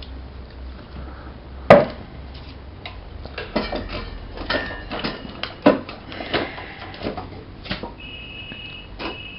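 Scattered knocks and clatter of wood and tools being handled, the loudest a sharp knock a couple of seconds in. The saw is not running. A steady high-pitched trill starts near the end.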